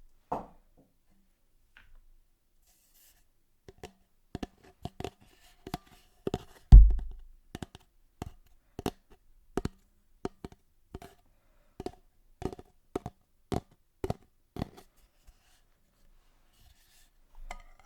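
A run of sharp taps on a hard object, roughly two a second, each with a short ringing tone. One heavy, deep thump comes about seven seconds in.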